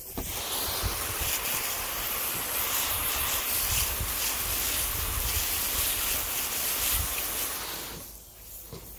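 Water spraying from a hose onto a tire and aluminum wheel, rinsing off the scrubbed sidewall: a steady hiss of spray that tapers off about a second before the end.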